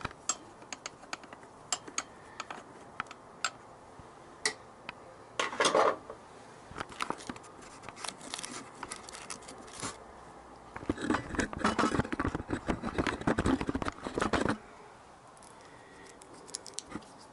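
Metal hand tools clicking, tapping and scraping against a motorcycle engine as the screws of a carburettor-to-engine intake rubber are worked loose. There is a short burst of clattering about a third of the way in, and a longer one of about three seconds past the middle.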